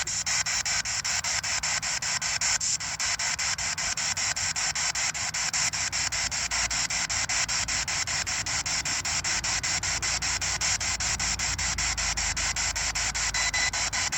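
Ghost box (spirit box) sweeping through radio stations: a steady hiss of static chopped into rapid pulses about six or seven times a second.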